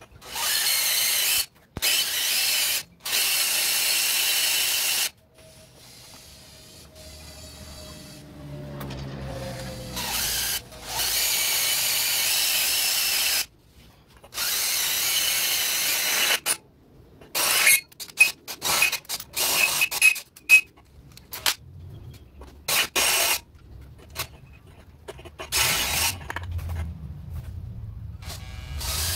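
Power drill boring a hole through a metal bracket and square steel tubing, run in bursts of a couple of seconds with pauses between, then in many short trigger stabs in the second half.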